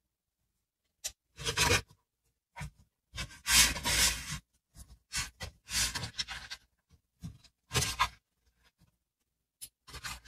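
A metal spoon scraping and tossing chopped cabbage and cucumber salad in a plastic bowl, working a thick dressing through it, in irregular scraping, rustling strokes. The longest and loudest stroke comes about three and a half seconds in.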